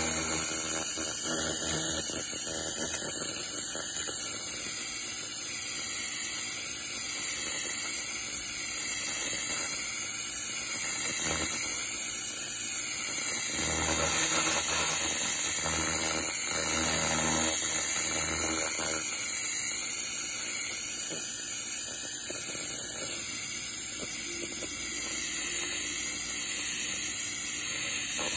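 Laser cleaner ablating the surface of a cast iron skillet: a steady, high-pitched hiss, with a low machine hum underneath.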